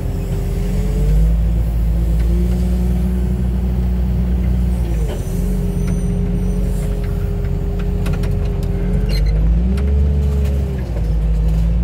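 Diesel engine of a wheel loader running under load, heard from its cab, with a steady whine above it. The engine speed dips and picks up again a few times, near the start, about five seconds in, and around nine to eleven seconds. A few light clicks and knocks come through.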